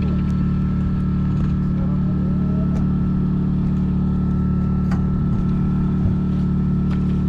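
Engine running steadily, a constant low drone with its overtones, with a few faint clicks over it.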